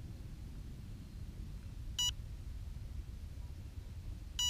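Short electronic beep from the crashed Bix3 RC plane's onboard electronics, sounding twice about two and a half seconds apart over a steady low rumble.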